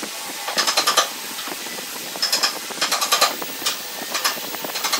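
Pencil scratching on pine wood while tracing along the edge of a cardboard template, in several short scratchy strokes over a steady hiss.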